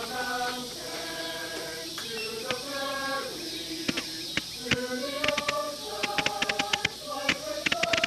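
Music with a sung melody, overlaid from about four seconds in by quick, irregular sharp pops growing denser, like crackling firecrackers.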